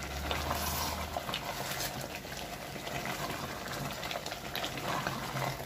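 Thick chicken korma gravy bubbling and simmering in a pot on a low flame while a spatula stirs through it, with small scattered pops and crackles.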